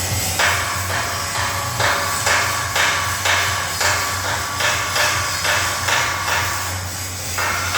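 Hammer striking metal in a steady rhythm of about two blows a second, over a steady low machine hum; a hiss starts near the end.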